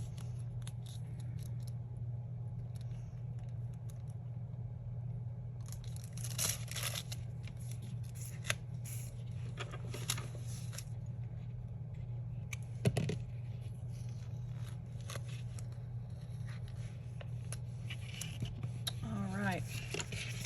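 Stickers and paper being handled on a desk: scattered rustles, scrapes and small clicks, busiest about six seconds in, with a sharper click around the middle, over a steady low hum. A brief voiced murmur near the end.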